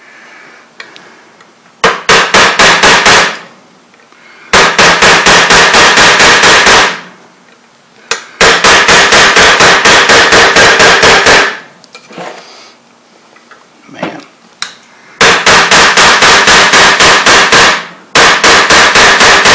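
Ball-peen hammer striking a steel pin punch in quick runs of about five blows a second, five runs with short pauses between, driving a stubborn flared pin out of an AR-15's A2 front sight base.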